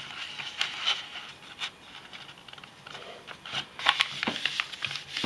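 A sheet of paper being folded and creased by hand on a tabletop: scratchy rustling and sharp crackles as fingers press and run along the fold, with a denser cluster of crackles about four seconds in.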